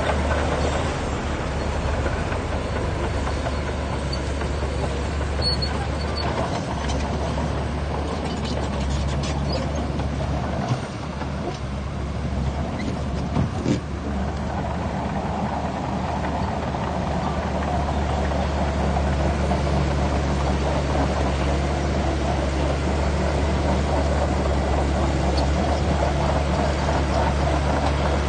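Shantui DX17C2 bulldozer's diesel engine running steadily with a low drone, growing a little louder and fuller from a little past halfway.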